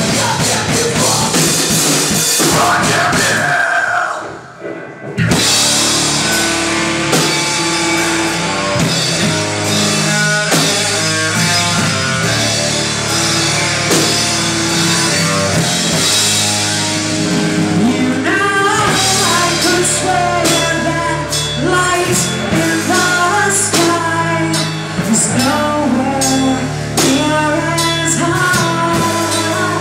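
Live heavy metal band playing loudly on guitars and drum kit. The band cuts out briefly about four seconds in, then crashes back in. A singer's voice comes in over the band in the last third.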